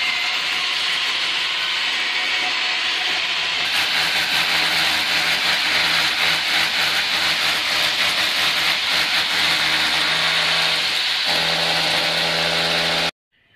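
Electric power drill boring into the wall through the air conditioner's metal wall-mounting bracket, running steadily with a motor hum and a rough grinding hiss. It cuts off abruptly near the end.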